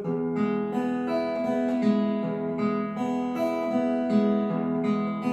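Acoustic guitar fingerpicking an E major chord in a repeating arpeggio pattern, single notes plucked one after another at an even pace and left ringing into each other.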